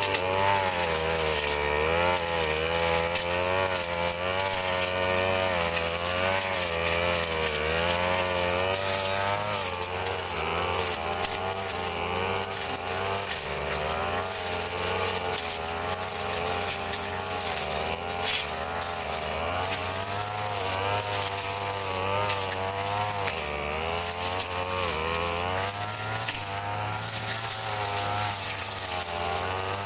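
Handheld two-stroke brush cutter running continuously, its engine pitch rising and falling as the throttle and cutting load change.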